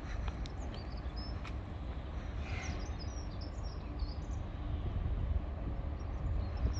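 Birds chirping in short calls, most of them between about two and four seconds in, over a steady low rumble.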